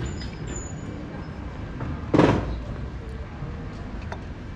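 Steady outdoor street background noise, with one short, loud vocal sound from the coffee drinker about two seconds in.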